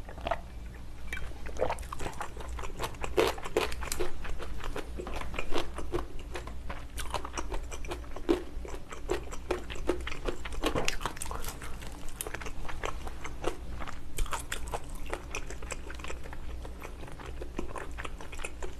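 Close-miked eating of spicy stir-fried ox foot: chewing and biting with many irregular wet smacks and clicks of the mouth.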